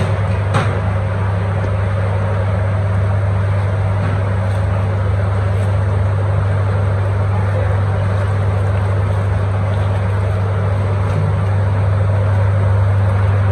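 A steady low mechanical drone with a constant hum, unchanging in level, with one sharp click about half a second in.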